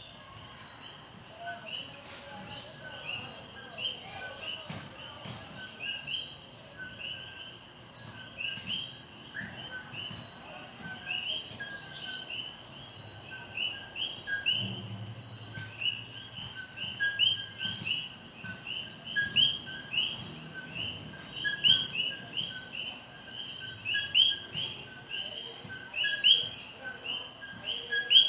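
Chorus of common coquí frogs calling, many overlapping two-note "co-QUÍ" calls: a short lower note followed by a higher rising one, repeated several times a second and growing louder in the second half. A steady high-pitched hiss runs behind them.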